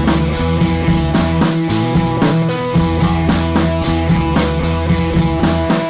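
Background rock music with drums and guitar and a steady driving beat.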